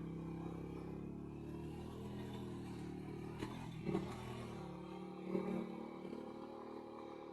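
Motorcycle engine running steadily at low revs, with a few brief knocks and clatters.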